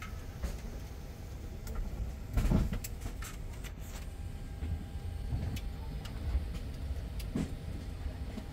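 Steady low rumble of an airliner cabin, with scattered clicks and knocks and one louder thump about two and a half seconds in.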